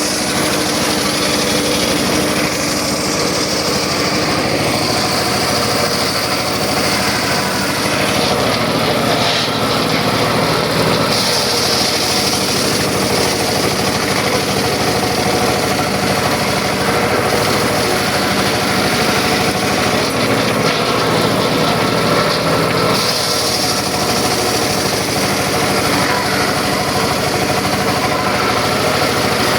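Circular saw running steadily, with a higher-pitched hiss that rises and falls several times over the steady running.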